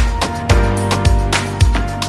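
Background music with a steady beat of about two hits a second under sustained pitched notes.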